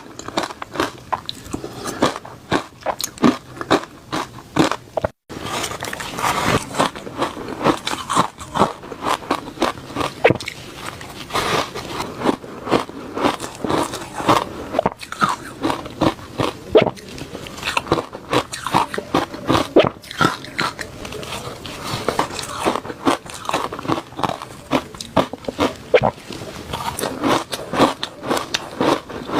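Reshaved freezer ice being bitten and chewed close to the microphone: a continuous run of rapid, crisp, irregular crunches, broken by a very short gap about five seconds in.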